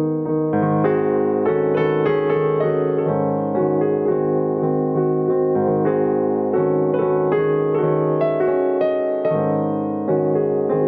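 Roland Fantom G8 workstation keyboard played solo in a piano voice: a continuous flow of overlapping notes and held chords.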